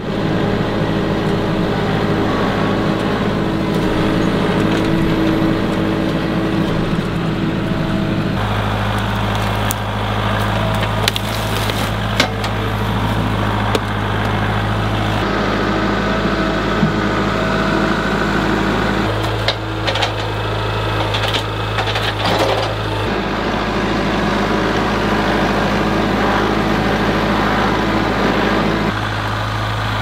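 Compact Kubota tractor's diesel engine running steadily as it drives, its pitch shifting a few times, with occasional sharp knocks and rattles.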